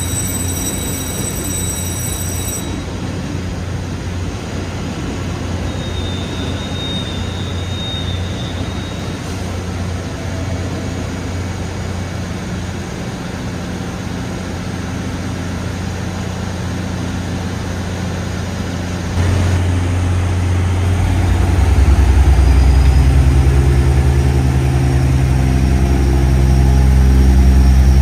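Diesel multiple unit express train idling at the platform with a steady low engine hum; about 19 seconds in its diesel engines throttle up and grow much louder as the train starts to pull away.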